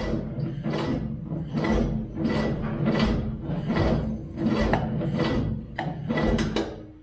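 Rhythmic rasping, scraping strokes, about three every two seconds, each with a dull low thump, stopping abruptly at the end.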